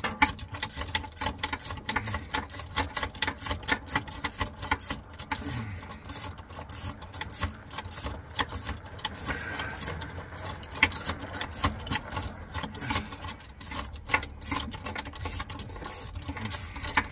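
Rapid, uneven metallic clicking and rattling of hand tools working loose the parking brake cable hardware on a Jeep TJ, over a steady low rumble.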